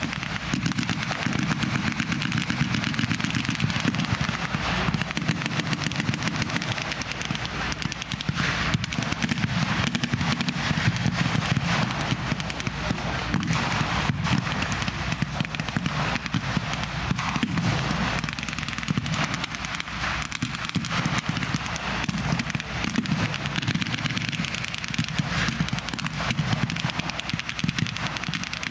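Sustained battle gunfire from blank-firing rifles and machine guns, many shots overlapping in a constant, irregular crackle with bursts of automatic fire.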